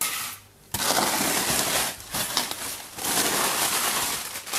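Styrofoam and plastic packing material being pulled out of a cardboard box and handled: a dense, continuous rustling that starts in earnest about a second in.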